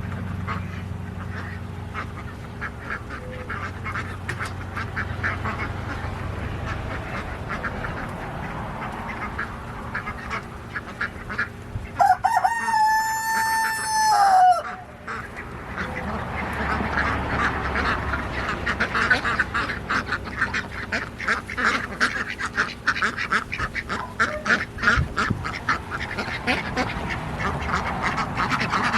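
A flock of ducks quacking over and over, busier in the second half. About twelve seconds in a rooster crows once, a long held call that drops at the end.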